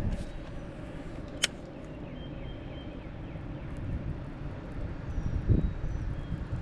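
Wind buffeting the microphone in a steady low rumble, with a stronger gust about five and a half seconds in. A single sharp click about a second and a half in.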